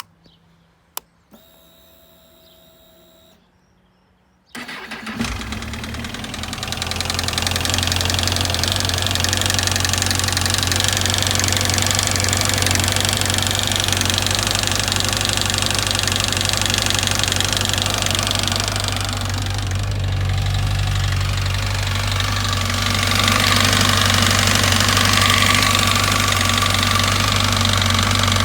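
Honda CBF1000F inline-four motorcycle engine: a click and a short electric hum, then the starter cranks and the engine catches about four and a half seconds in. It settles into a steady idle with a rattle from the engine.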